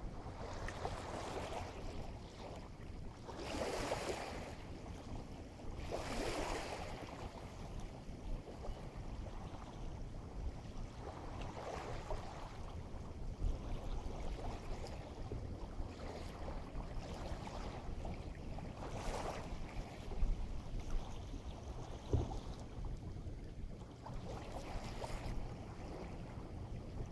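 Waves washing onto the shore in separate surges a few seconds apart, over a steady low rumble of wind on the microphone.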